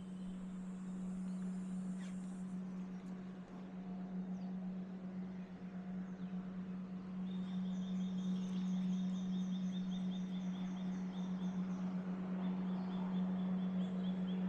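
A steady low hum throughout, with a bird's rapid trill of quickly repeated high notes starting about halfway through and returning near the end.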